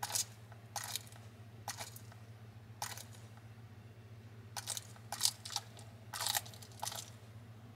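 Bearded dragon biting down on a live giant horned hissing cockroach, crunching through its hard shell. Single crunches about a second apart quicken into a run of rapid crunches in the second half.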